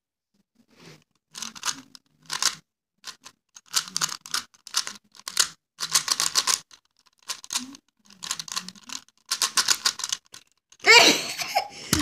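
A 3x3 Rubik's cube being turned fast in a speed solve: bursts of rapid plastic clicking and rattling from the layer turns, with short pauses between them. Near the end a loud, excited voice breaks in.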